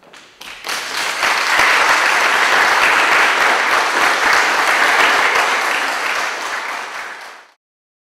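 Audience applauding at the end of a performance: a few first claps that swell into full applause within about a second, hold steady, then fade and cut off near the end.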